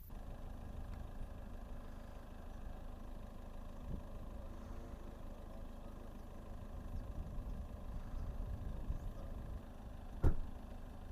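A vehicle engine running steadily at a low, even pitch, with one sharp knock about ten seconds in.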